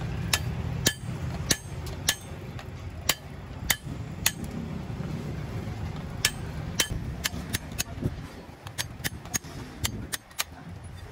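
Hammer striking a steel punch held against the hub of a truck clutch disc: a run of sharp metal-on-metal blows, roughly two a second, with a short pause partway through.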